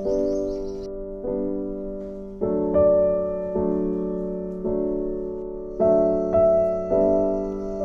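Background music: slow, gentle piano or electric-piano chords, a new note or chord struck about every second and left to ring and fade.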